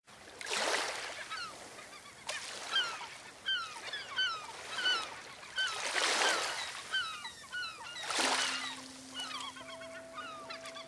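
A flock of water birds calling in many short, quick calls over the wash of waves that swells up every few seconds. Near the end a steady low music note comes in, joined by a higher one.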